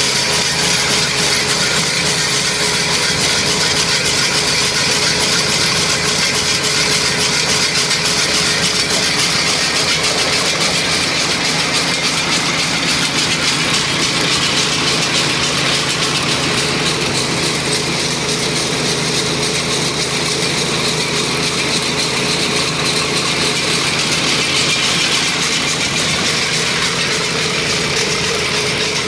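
Ditch Witch walk-behind trencher running steadily under load as its digging chain cuts a trench through soil and gravel, with the spoil auger turning alongside.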